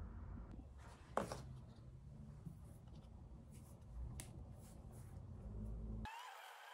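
Faint, light handling sounds of a marker drawing on a pumpkin's skin as the pumpkin is turned in the hands, with one sharp click about a second in and a few soft ticks later. Near the end the low room rumble cuts off abruptly and a thin hiss takes its place.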